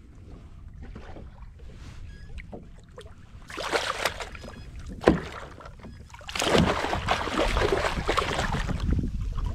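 Water splashing against a kayak's hull as a hooked fluke (summer flounder) thrashes at the surface while it is landed by hand. There is a short splash about four seconds in, then a sharp knock, then a longer, louder bout of splashing from about six seconds in.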